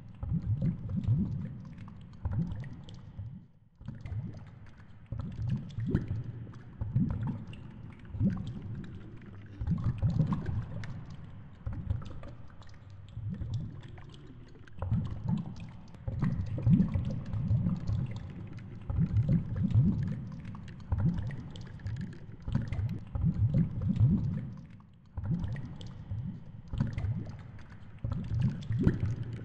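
Muffled underwater rumble of water moving past a GoPro in its housing as it sinks on a fishing rig. The low churning swells and fades unevenly, with scattered faint clicks.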